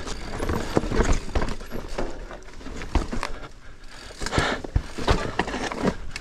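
Mountain bike riding down a rocky trail: irregular knocks and rattles as the tyres and suspension hit stones, with a quieter stretch a little past halfway.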